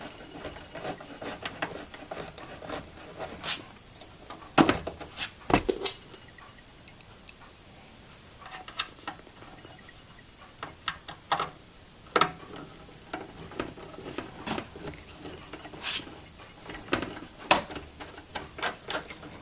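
Hands working parts inside an open Dell XPS 8300 desktop computer case: irregular clicks, knocks and rubbing as a drive adapter and cables are fitted into the drive bay. A couple of louder knocks come about five seconds in, and another near the middle.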